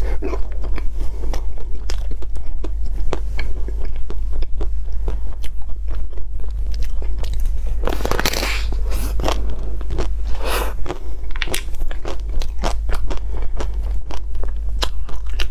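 Close-up biting and chewing of a Magnum Ruby ice cream bar, its crisp chocolate shell crunching and crackling in many small clicks, with louder crunches about halfway through. A steady low hum sits underneath.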